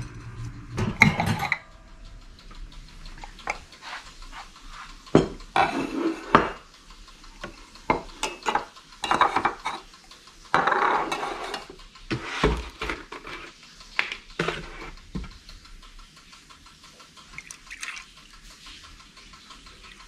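Kitchen clatter of dishes and utensils being handled: cups, a mug and tableware knocked and set down on surfaces, in irregular clinks and knocks that thin out over the last few seconds.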